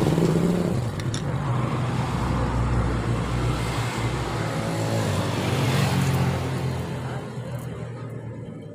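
A motor vehicle's engine running close by, a steady hum that swells about six seconds in and then fades away near the end.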